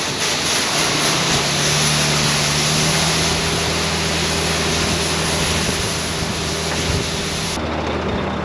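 Shelled corn pouring from a grain cart's unloading auger into a truck, a steady rushing hiss over the steady running of the machines' engines. The hiss drops off sharply near the end.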